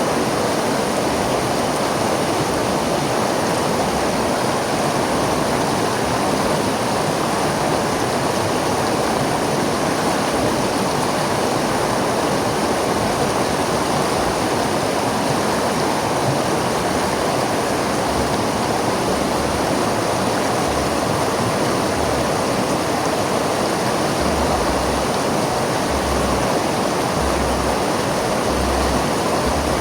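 River water flowing and rushing steadily, an even churning hiss without breaks.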